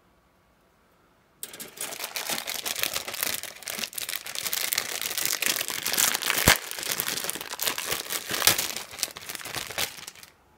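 Clear plastic bag around plastic model-kit runners crinkling as it is handled. It starts about a second and a half in and dies away near the end, with one sharp tap a little past the middle.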